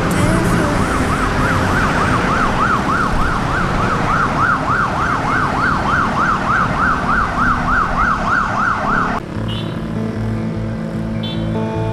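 Emergency-vehicle siren on a fast yelp, its pitch sweeping up and down about three times a second over road traffic noise. It cuts off suddenly about nine seconds in.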